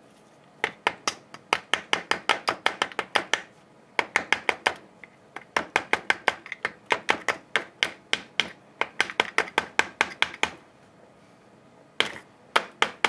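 Quick runs of sharp clicks, about six a second, in four bursts with short pauses between them, from hand work on the parts of a Stihl HS80 hedge trimmer.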